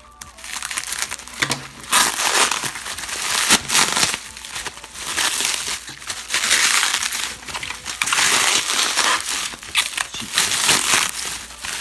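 Plastic packing material and bubble wrap being pulled open and crumpled by hand: loud, irregular crinkling in long bursts with a few sharp crackles, starting about two seconds in.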